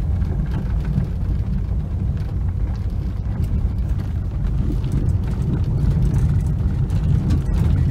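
1999 Nissan Altima's 2.4-litre four-cylinder engine running under light throttle, with tyre and road noise, heard from inside the cabin as the car drives slowly around a gravel lot: a steady low rumble that swells a little in the second half.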